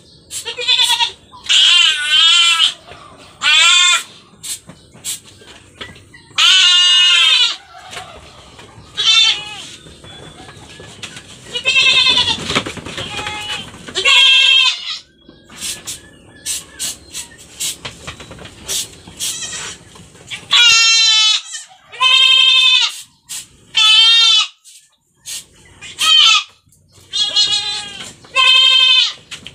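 Goat kids bleating over and over with loud, quavering calls while they are held and sprayed on the mouth for orf, with short clicks between the calls.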